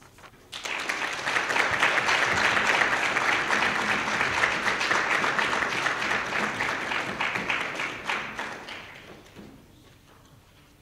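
Audience applauding: many hands clapping. It starts about half a second in and dies away over the last few seconds.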